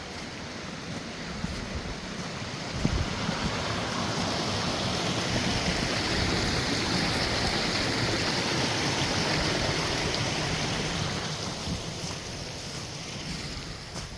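Rushing creek water, a steady hiss that grows louder about three seconds in and eases again near the end.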